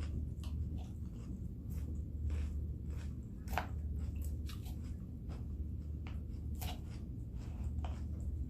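A person chewing and crunching a mouthful of Caesar salad with croutons: scattered short crisp crunches and clicks, the sharpest about three and a half and six and a half seconds in, over a steady low hum.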